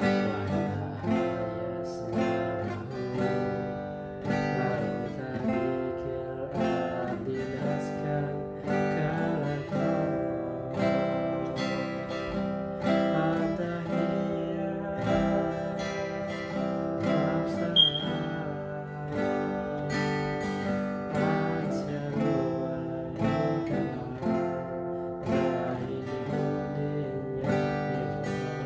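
Acoustic guitar strummed in a steady rhythm, ringing chords. About two-thirds of the way through there is a short, sharp high-pitched blip.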